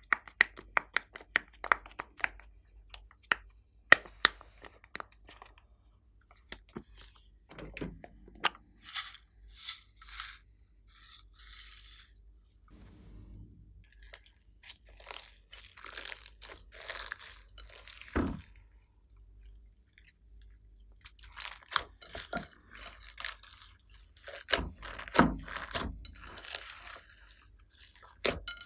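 Glossy slime being worked by hand: a run of sharp sticky clicks for the first few seconds, then repeated squishing and crackling as it is pressed, stretched and folded.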